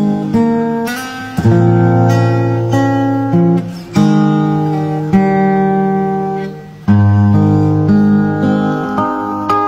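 Background music: an acoustic guitar strumming chords, with a fresh chord struck every second or so.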